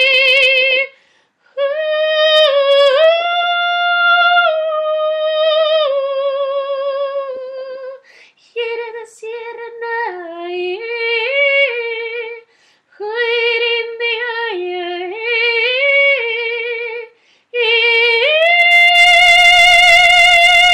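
A woman singing solo in long held notes with vibrato that step up and down, in phrases broken by short pauses for breath; the last phrase, near the end, is louder and higher.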